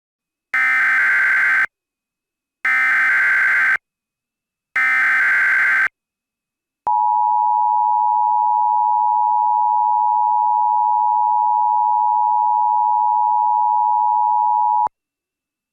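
Emergency Alert System SAME header: three buzzy digital data bursts, each about a second long with about a second between them. After a short gap comes the two-tone EAS attention signal, one steady tone held for about eight seconds that cuts off sharply. It marks the start of an emergency alert message.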